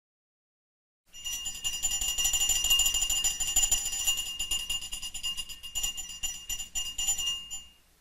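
Small hunting dog bell shaken by hand: rapid, repeated strikes of the clapper give a continuous high, bright ringing. It starts about a second in and dies away shortly before the end.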